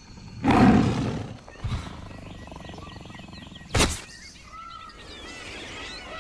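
Animal sound effects opening a dance track: a loud, low animal call about half a second in, a sharp hit just before four seconds, then short chirping calls.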